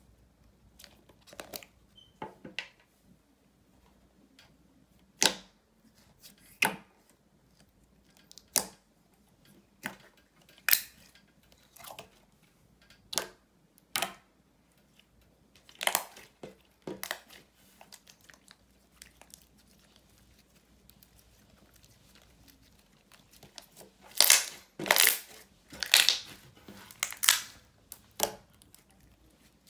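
Glossy slime being pressed and poked by fingers, giving separate sharp sticky pops and squelches as air pockets burst. They come every second or two, then a quick run of louder pops near the end. Near the start there are a few faint clicks as the plastic tub's lid is worked open.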